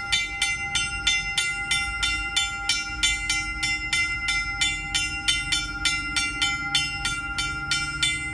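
Drawbridge traffic-gate warning bell ringing rapidly and evenly, about four strikes a second, with a steady ringing tone under the strikes. It warns that the bridge is open and the gates are down.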